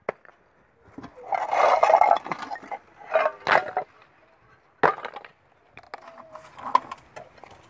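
Broken clay roof-tile pieces dropped by hand into a dug pit, clattering and clinking onto stones and other tile shards. There are a few separate drops: two longer clatters in the first half, then a sharp single knock and a smaller one later.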